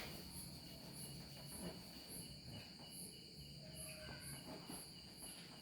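Faint insect chirping: a high-pitched pulse repeating about twice a second, over a steady high-pitched tone.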